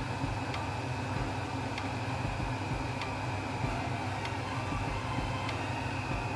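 Steady hum and hiss of a lidded wok steaming hard on a lit gas burner, with a faint short tick about every second and a quarter.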